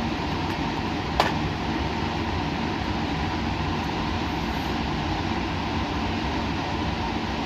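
Steady hum and rushing noise of lab machinery, unchanging in level, with a single sharp click about a second in.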